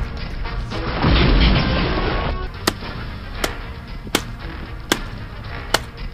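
Music with a steady beat: a heavy low boom about a second in, then sharp percussive hits at an even pace, a little under one and a half per second.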